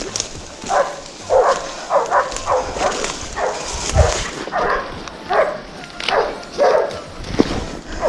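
Pig-hunting dog barking over and over, about two barks a second, as it bails up (holds at bay) a wild pig.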